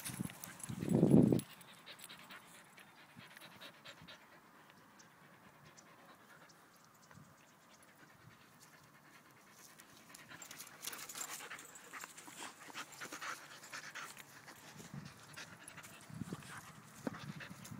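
A dog panting, louder and busier in the second half. A short low thump about a second in is the loudest sound.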